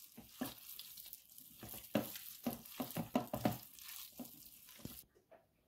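Hands squeezing and mixing raw chicken wings coated in spice powder in a glass bowl: soft, irregular wet squishing that stops about five seconds in.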